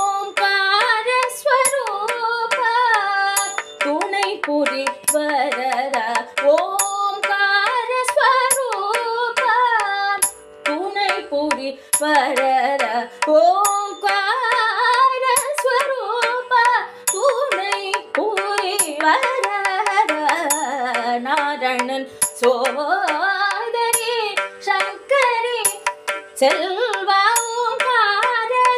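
Carnatic music in raga Naattai, Adi talam: a sliding, ornamented melody over a steady drone, with drum strokes keeping the beat.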